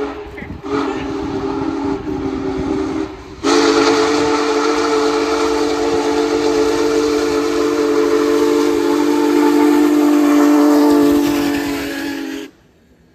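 Union Pacific Big Boy 4014's steam whistle blowing a chord of several notes with steam hiss: a short blast ending just after the start, a blast of about two seconds, then one long blast of about nine seconds that cuts off suddenly.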